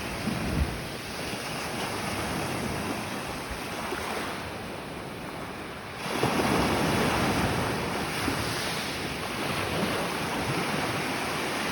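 Sea waves washing onto the shore, with wind buffeting the microphone. The surf drops off in the middle and comes back suddenly louder about six seconds in.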